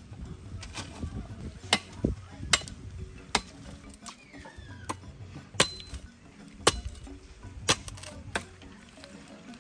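A series of about ten sharp knocks, irregularly spaced roughly a second apart, over a low hum.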